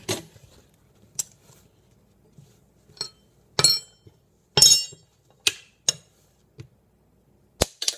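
Small metal spoons clinking and tapping on a granite countertop: about eight separate sharp clinks, a few with a brief metallic ring.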